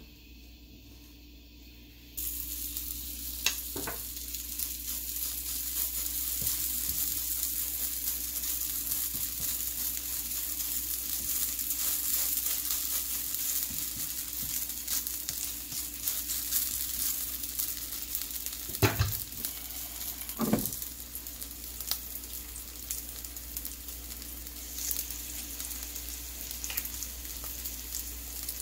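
Tofu-and-ground-beef meatball patties frying in hot oil in a nonstick pan: a steady sizzle that starts suddenly about two seconds in, as the first patty goes into the oil. A few sharp knocks are heard over it, the loudest two close together past the middle.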